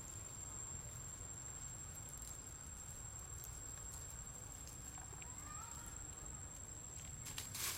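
Steady high insect drone over a low wind rumble, with a few faint ticks and a short faint chirp about five seconds in. Near the end, crackling rustles of dry leaf litter being disturbed.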